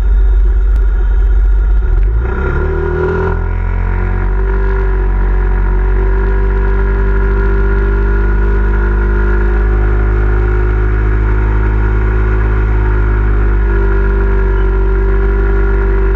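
Yamaha Zuma 125 scooter's single-cylinder four-stroke engine revving up about two seconds in, then held at high, steady revs while the rear tyre spins in place on concrete in a burnout.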